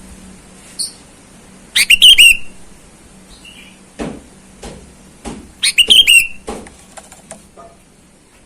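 Sooty-headed bulbul (kutilang) singing two loud, quick phrases of bubbling whistled notes about four seconds apart, with a few sharp clicks between them.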